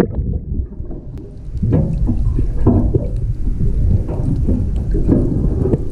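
Splash as the camera goes under the surface, then a steady muffled underwater rumble of moving water against the camera with faint crackling.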